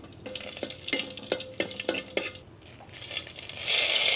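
Hot ghee tempering in an aluminium pot. A run of small sharp pops, about three a second, rings briefly off the pot. About three and a half seconds in, a loud steady sizzle starts as curry leaves hit the hot ghee.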